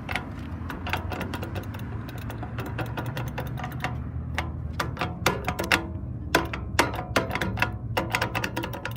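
Old McCain pedestrian crosswalk push button being pressed over and over, giving many sharp, irregular clicks, several a second and quickest in the second half. A steady low rumble runs underneath.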